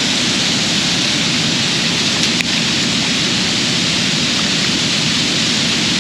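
Steady, loud rushing of water, an even hiss with no pitch, with a faint click about two and a half seconds in.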